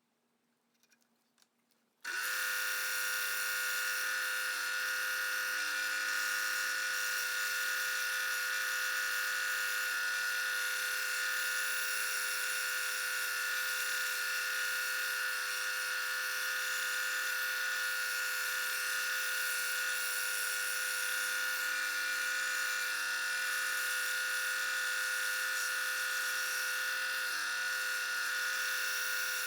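Scroll saw starting up suddenly about two seconds in, then running steadily with an even hum and buzz as it cuts stacked 1/8-inch Baltic birch plywood.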